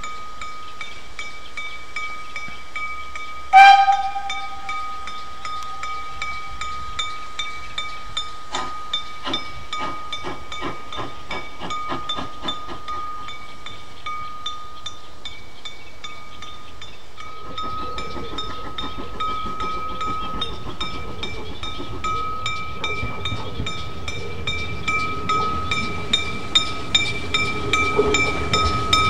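The onboard bell of a Danish class F 0-6-0T steam tank locomotive ringing steadily in rapid repeated strokes. A short loud note about three and a half seconds in fades over a couple of seconds. From about halfway the locomotive's running and exhaust sound grows as it draws nearer, with louder puffs near the end.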